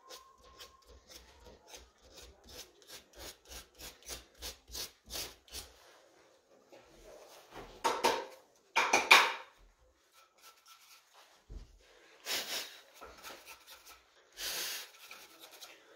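Sandpaper rubbed by hand over a carved wooden panel in short back-and-forth strokes, about two or three a second, growing louder. Later come a couple of louder rustling rushes, then the sweeps of a bristle brush dusting off the wood and the cork board.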